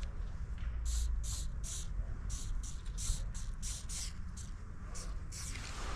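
Aerosol spray paint can sprayed in quick short bursts, about three a second, along the edge of a handheld cardboard mask to lay in highlights, over a low rumble.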